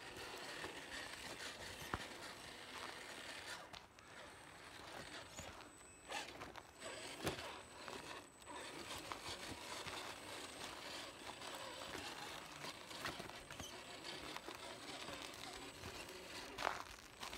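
Faint crunching and scraping of an RC crawler's tyres over dirt, small rocks and pine needles. A few sharp knocks, the loudest near the end.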